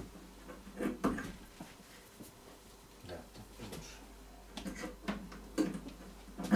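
Scattered clicks, taps and rustles of hands handling parts during assembly work, with a sharper knock near the end.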